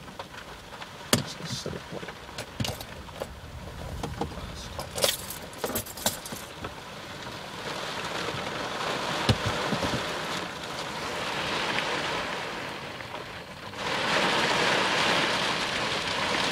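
Heavy rain on a car, heard from inside: scattered sharp drop hits on the glass and body over a rain hiss that slowly builds, then turns suddenly louder and brighter about 14 seconds in.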